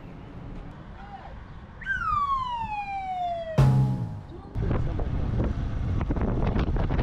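A siren-like tone slides steadily down in pitch for about two seconds and is cut off by a sharp click. A short low hum follows, and then wind buffets the microphone with crackling.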